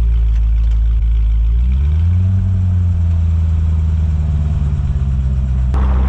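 2006 Corvette C6 Z06's 7.0-litre LS7 V8 running through its stock exhaust, with no turbo whistles fitted yet. The engine note rises about two seconds in and then holds steady, with a brief rush of noise near the end.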